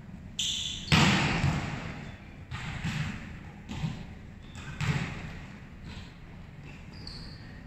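Volleyballs being struck and bouncing on the hard court floor: an irregular series of thuds that echo in the large hall, the loudest about a second in.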